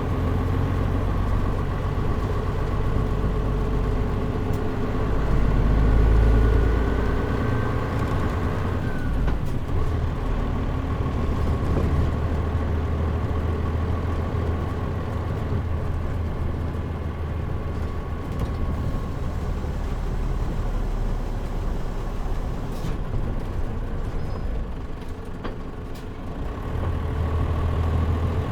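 Mitsubishi Fuso KL-MP37JM city bus running, heard from inside the cabin. A steady engine drone carries a rising whine that climbs for the first eight seconds or so, then falls away abruptly. The bus runs on evenly after that and pulls harder again near the end.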